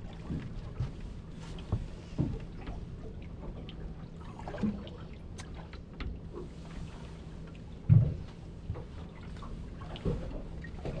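Water lapping and knocking against a small boat's hull over a steady low hum, with scattered light knocks and one louder thump about eight seconds in.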